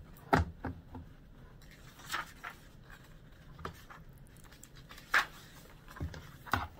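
A picture book being handled on a wooden desk: set down, opened, its pages turned and pressed flat, giving scattered knocks and taps with soft paper rustling between. The sharpest knocks come just after the start and a little past five seconds in.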